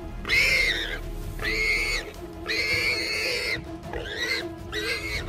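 A warthog squealing in distress as a pack of African wild dogs seizes and bites it: a run of about five high squeals, each up to a second long.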